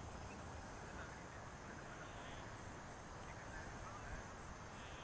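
Faint outdoor background noise: a low, uneven rumble with a few faint, short high chirps.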